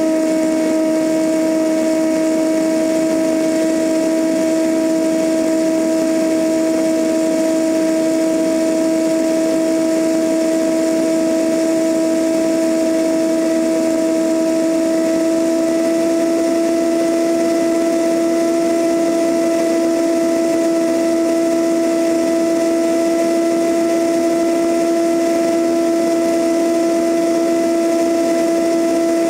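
Cessna 172N's four-cylinder Lycoming engine and propeller running steadily in flight, heard from outside the fuselage with airflow noise: a continuous droning hum whose pitch creeps up slightly.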